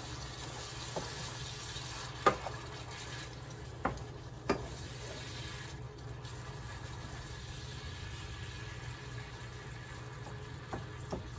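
Pad Thai noodles and egg cooking in a skillet and stirred with a wooden spoon: a faint sizzle over a steady low hum. There are four sharp knocks of the spoon against the pan in the first five seconds.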